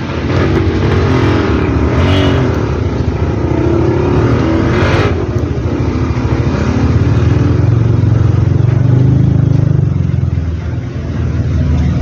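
An engine running steadily with a rough low rumble, swelling somewhat about eight to nine seconds in.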